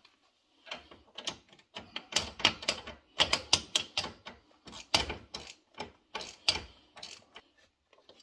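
Irregular metallic clicks and clunks from hands working the ATV's front strut and steering knuckle, metal parts knocking against each other.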